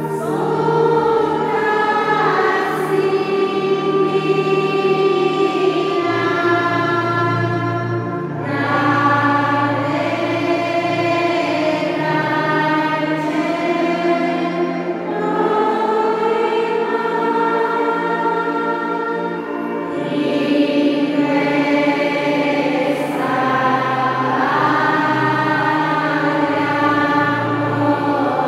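Choir singing slow sacred music in long held chords over a sustained low part, with brief pauses between phrases.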